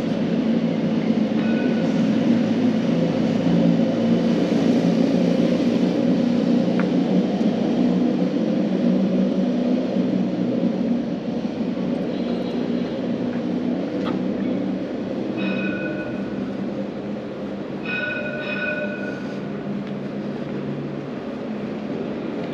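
A tram running close by with a steady low rumble and hum that eases off a little about halfway through. A few short high tones come over it near the start and twice in the second half.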